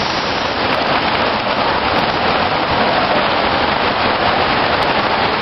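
Heavy rain falling in a steady downpour, splashing on pavement and foliage.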